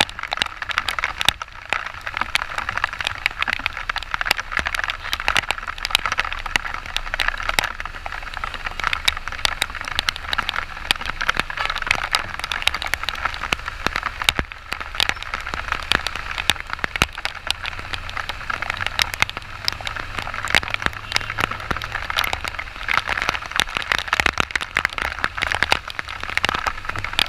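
Heavy rain striking close to the microphone in a dense, steady crackle of drops, with a low hum from the Yamaha XTZ 125 motorcycle underneath.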